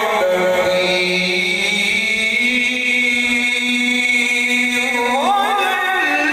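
A male qari reciting the Quran in the melodic tajweed style, drawing out long held notes, with the voice climbing in a rising run about five seconds in.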